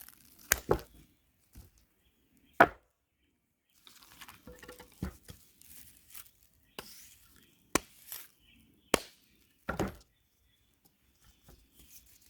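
Bondo body filler being worked with a putty knife: soft scraping broken by several sharp taps and knocks, the loudest a few seconds in.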